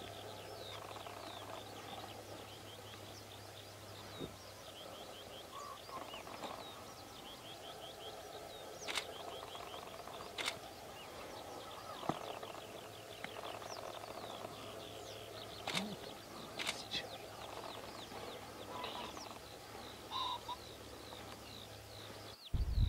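Background birdsong: many quick chirps and trills, with a few short sharp clicks and a faint steady low hum beneath.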